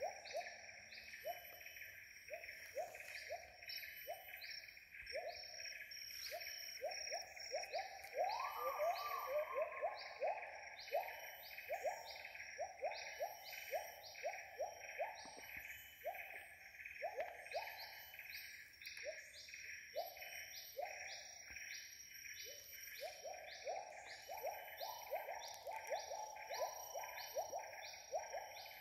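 Rainforest chorus: a bird repeats short calls in quick series, over a steady insect drone and a regular higher pulsing.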